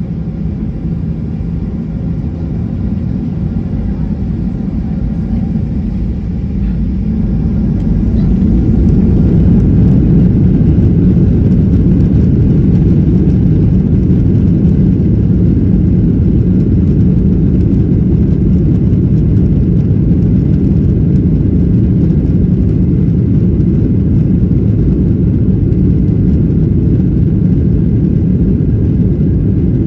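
Boeing 737-800's CFM56-7B turbofan engines at takeoff power, heard from inside the cabin as a loud, steady low rumble during the takeoff roll. The rumble grows louder over the first eight seconds or so, then holds level as the jet speeds down the runway.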